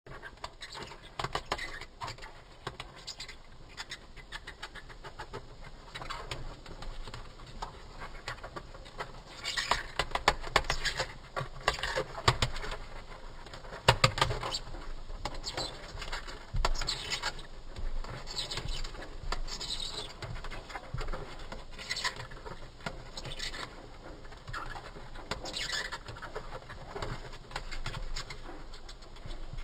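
Female death's-head hawkmoth's wings fluttering in irregular bursts, a rustling patter of wing strikes. The loudest flurries come about ten to fourteen seconds in.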